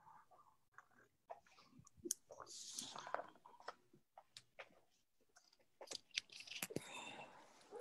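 Faint, irregular clicks and rustling, with two longer scratchy swishes, picked up over a video-call microphone.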